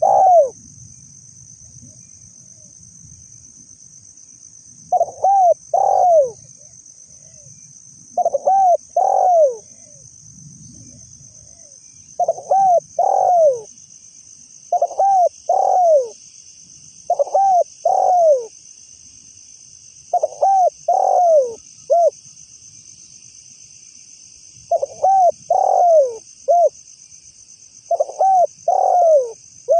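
Spotted dove (tekukur) cooing in repeated short phrases of two or three mellow notes, a phrase every three to four seconds. A steady high-pitched insect drone runs underneath.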